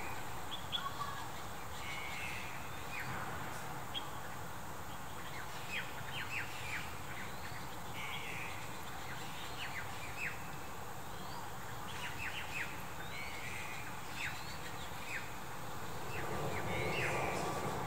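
Small birds chirping on and off, short sharp notes that slide downward with a few buzzy calls among them, over steady outdoor background noise that swells near the end.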